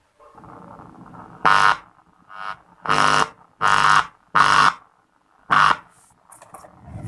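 Sound played through a repaired STK4141 5.1 amplifier on test: six short, loud, buzzy tone blasts in an uneven rhythm over a faint hum.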